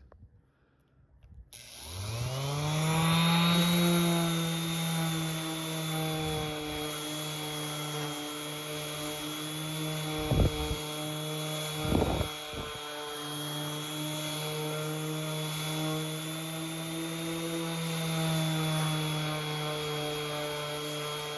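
Bosch ROS20VSC 2.5-amp random orbit sander switched on about a second and a half in, its motor whining up to speed and then running steadily while sanding with a heavier-grit disc. A couple of brief knocks come midway.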